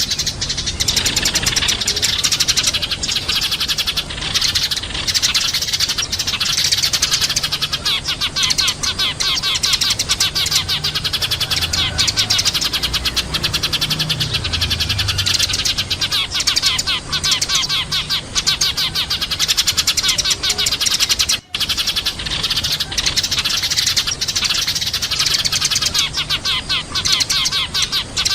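Eurasian tree sparrows chirping in a dense, rapid, unbroken chatter, with a very brief break about three-quarters of the way through.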